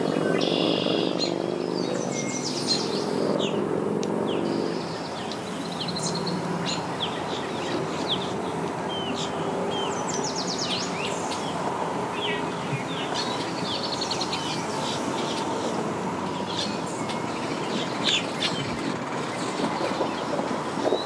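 Small runabout boat's engine idling at low speed as the boat creeps in, its low note fading away about five seconds in, with many short bird chirps throughout.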